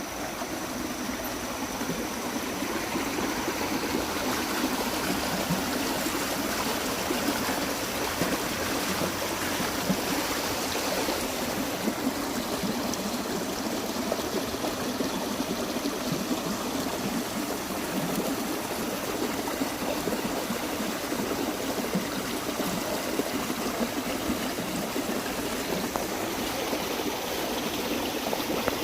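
Water running steadily with a continuous rushing, trickling sound, like rainwater flowing during the monsoon downpour.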